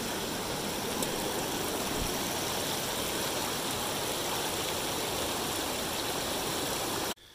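Small waterfall pouring into a rocky pool: a steady rush of falling water that cuts off suddenly near the end.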